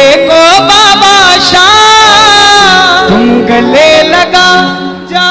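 Hindi devotional bhajan: a voice sings a long, ornamented, gliding melody over steady instrumental accompaniment.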